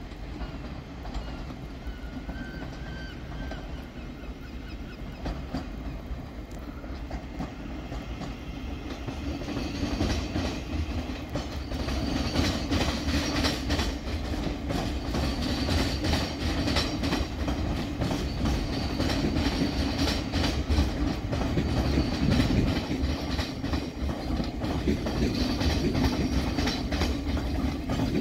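Thameslink Class 700 electric multiple unit running in over station pointwork, its wheels clicking and clattering over rail joints and crossings. The train grows clearly louder about ten seconds in as it draws alongside, and a steady hum runs under the clatter.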